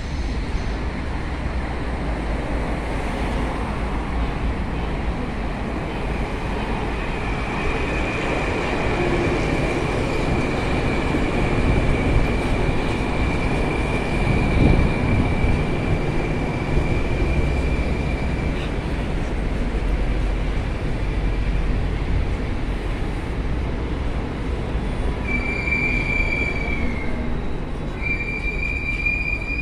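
81-765.2 metro train pulling into the station and rolling to a stop, with a high steady whine as it comes in and its loudest pass about halfway through. Two short high tones sound near the end as it stands at the platform.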